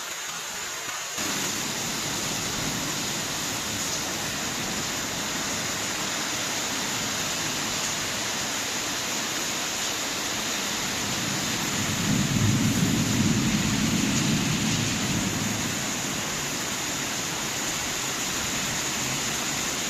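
Steady heavy rain, which grows suddenly louder about a second in, with a low rumble of thunder swelling about twelve seconds in and dying away over a few seconds.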